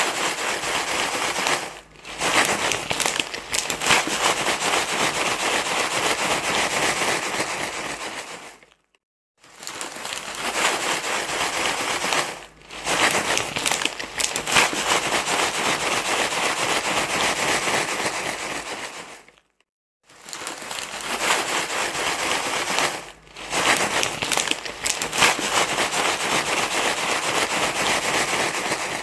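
Loud, crackly rustling and crinkling, like a sheet of plastic or paper being crumpled, played as a soothing noise for a crying baby. It goes in a repeating loop: a short burst, a brief break, then a longer stretch, then a short silence, about every eleven seconds.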